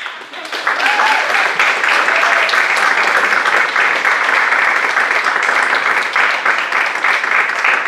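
Audience applauding, building up quickly in the first second and then holding steady.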